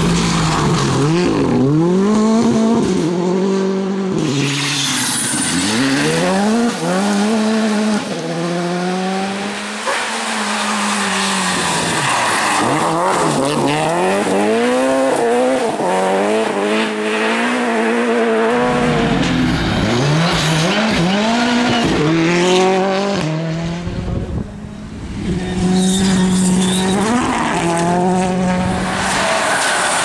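Rally cars at full attack on a gravel stage, one after another: engines revving hard and falling away again and again through gear changes and lifts off the throttle, with gravel spraying from the tyres. There is a short lull about three-quarters of the way through.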